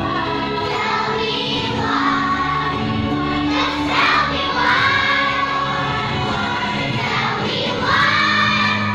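A group of young children singing together as a choir, holding long notes.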